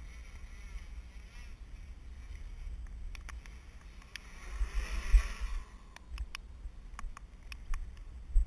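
Quadcopter propellers and motors buzzing faintly, swelling loudest about four to five and a half seconds in as the quad flies close, then fading. Wind buffets the microphone with a low rumble and thumps, and sharp ticks of raindrops strike the camera every second or so.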